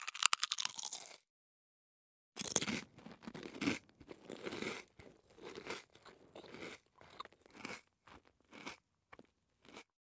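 Potato chip crunched in the mouth: a short, dense crackly burst, then after about a second's pause a longer run of chewing on potato chips. The chewing crunches come about two a second and grow fainter toward the end.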